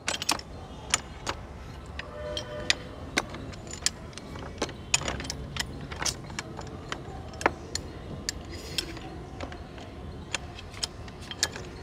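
Irregular sharp metallic clicks and clinks of pipe wrenches being set and turned on a brass ball valve, tightening it onto its threaded pipe sockets.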